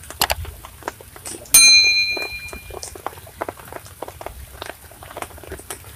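Bell ding of a subscribe-button sound effect, one bright ring about one and a half seconds in that fades over about a second. A short click comes just before it, and light ticks and taps are scattered through the rest.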